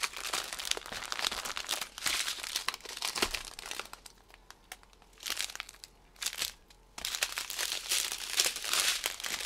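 Small plastic zip-lock bags of diamond painting drills crinkling and rustling as they are shuffled by hand. The rustling drops away for about three seconds in the middle, broken by two short rustles, then picks up again.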